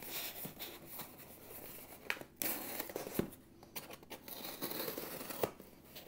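Pocket knife blade slitting the packing tape and cardboard of a shipping box, with scraping, tearing and crinkling in several short strokes.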